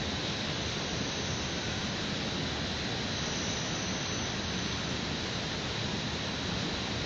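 Steady rushing hiss of outdoor ambience picked up by a rooftop webcam microphone, even and unchanging, with no distinct events.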